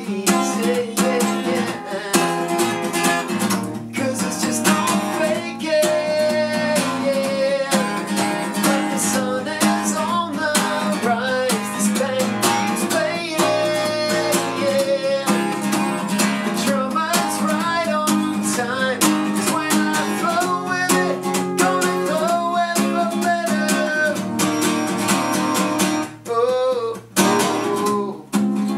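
Acoustic guitar being strummed and picked, with a man's voice singing over it. The playing eases off briefly near the end, then picks up with a strong strum.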